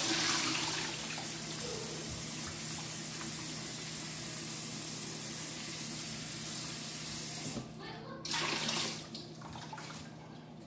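Kitchen tap running into a stainless steel sink as a bowl is rinsed under it. About eight seconds in there is a louder splash of water poured out of the bowl, and the flow stops shortly before the end.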